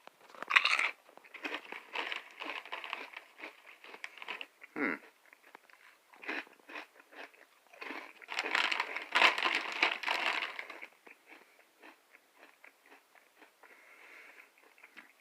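Someone biting and chewing Doritos 3D Crunch Chili Cheese Nacho puffed corn snacks close to the microphone, with loud crisp crunching. The crunching comes in two heavy spells, just after the start and again past the middle, and fades to softer chewing near the end.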